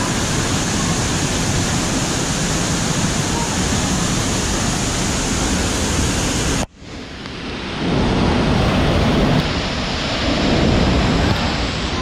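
Waterfall roaring at close range, its spray pelting the camera in a loud, even rush of water. The sound breaks off suddenly a little past halfway and swells back within a second or so.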